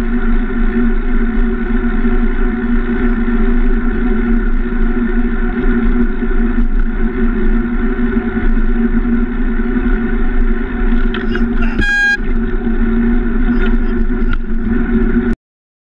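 Steady wind and road noise on a bicycle-mounted camera riding along a highway, a constant rushing hum. A short high beep comes about twelve seconds in, and the sound cuts off suddenly near the end.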